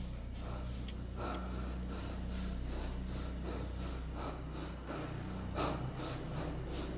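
A person breathing close to the microphone, a few soft nasal breaths over a low steady hum, with faint clicks and rustles in between.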